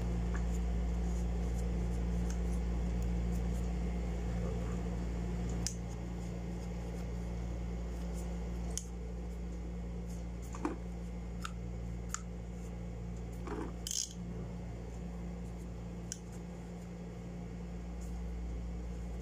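Scattered small clicks and light taps of plastic and metal as a spinning reel is handled and wiped down with a cloth rag, over a steady low hum.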